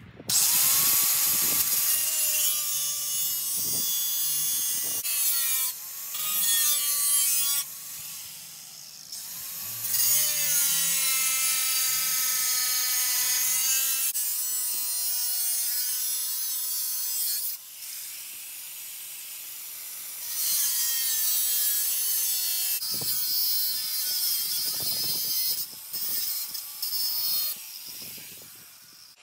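Angle grinder cutting lengthways through a metal repair panel for a VW T4 sliding-door sill, trimming off a surplus lip. It runs as long stretches of harsh cutting noise over the motor's whine. A few times the disc eases off the metal and only the whine remains, and the grinder winds down near the end.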